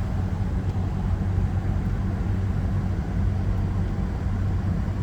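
Steady low hum of a 2014 Nissan Pathfinder's engine idling, heard from inside the cabin.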